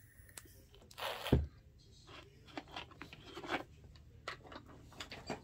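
Small handling sounds of nail-polish bottles and a brush on a tabletop: a short scrape ending in a knock about a second in, then a run of light clicks and scrapes.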